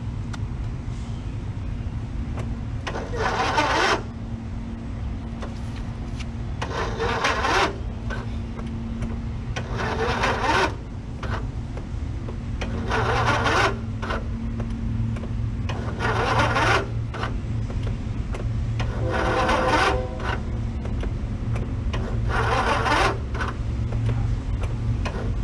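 Riding mower's two-cylinder engine spun over by its electric starter with the spark plugs out, in short bursts of about a second, repeated roughly every three seconds. A steady low hum runs underneath.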